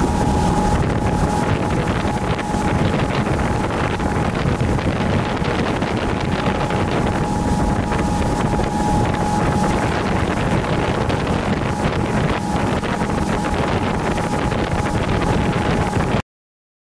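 Fishing charter boat running at speed: a steady engine and water-rushing noise with wind buffeting the microphone, and a thin steady whine above it. It cuts off abruptly near the end.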